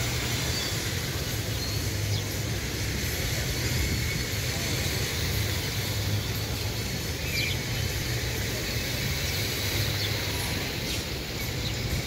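Water fountain: a steady rush of water spilling down a rock cascade into a pond, with a low, even rumble underneath.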